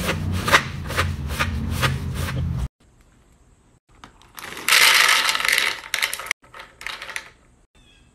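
Candy corn poured from a plastic bag into a white ceramic sectioned platter: a loud rattling patter of many small hard candies hitting the dish for about a second and a half, followed by a few shorter trickles. Before it, a run of quick clicks over a low hum stops abruptly about a third of the way in.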